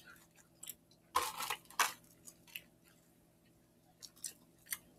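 Close-up mouth sounds of people eating fast-food burgers: chewing and wet lip smacks. There are a couple of louder noisy bursts about a second in, then a quiet stretch and a few small clicks near the end.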